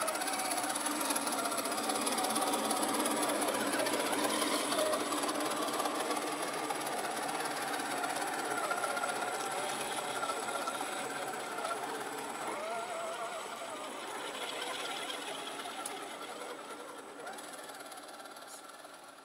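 Radio-controlled scale crawler trucks' electric motors and geartrains whining as they crawl over muddy ground, the pitch wavering up and down with the throttle. The sound fades from the middle on as the trucks move away.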